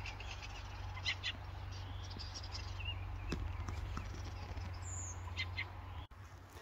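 A songbird singing from a treetop: scattered short high notes and a brief falling whistle about five seconds in, over a steady low rumble that cuts off about six seconds in.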